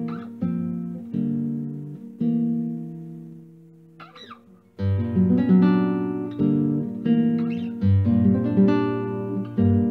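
Music: acoustic guitar strumming chords. The strumming thins out and pauses about four seconds in, then comes back fuller and louder.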